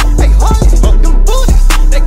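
Loud hip hop track with heavy bass and a steady beat, its sharp hits landing about twice a second.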